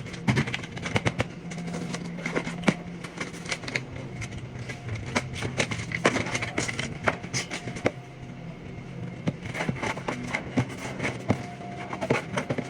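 Irregular sharp clicks and knocks from hands-on duct work, over a steady low machine hum.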